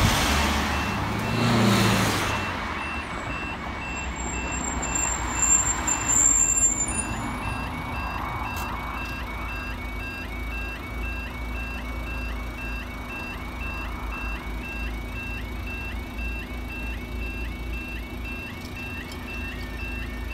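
Railway level crossing's audible warning alarm sounding as the crossing closes for a train: a two-tone warble repeating steadily about twice a second. Cars drive over the crossing in the first seven seconds or so, loudest near the start and again around six seconds in.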